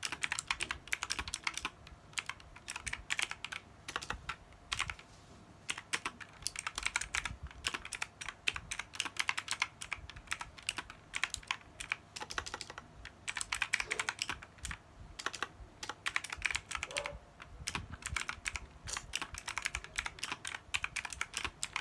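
Fast typing on a computer keyboard during a typing test: rapid, continuous keystroke clicks with a few brief pauses.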